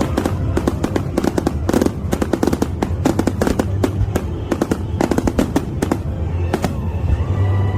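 Fireworks going off in rapid volleys, many sharp bursts and crackles a second, with music playing underneath.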